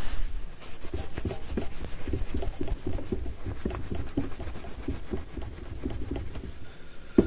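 A cloth rubbed back and forth in short strokes over a turntable's top plate, scrubbing off sticky residue left by a perished drive belt. A single sharp knock comes near the end.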